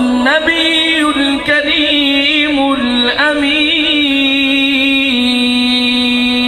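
A qari's solo male voice chanting the drawn-out close of a Quran recitation (tilawat): a wavering, ornamented melismatic line that settles into one long held note about five seconds in.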